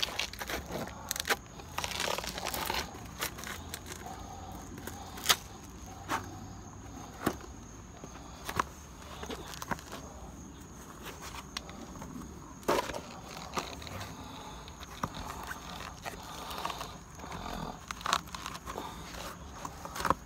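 Timberland boat shoe's worn-out rubber sole scraping and scuffing on a concrete step as it breaks apart, then the shoe being handled and knocked about, with irregular sharp knocks and crackling scuffs.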